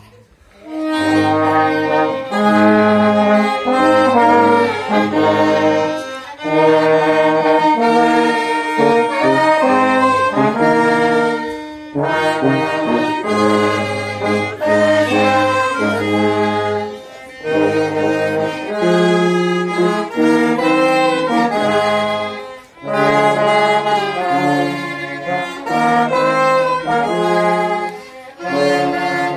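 Trombone, euphonium and violin playing a slow hymn together in long held chords. The music goes phrase by phrase, with a short break about every five or six seconds.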